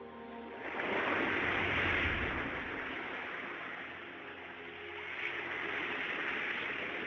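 Sea surf breaking and washing up the beach, a rushing noise that swells about a second in and again around five seconds.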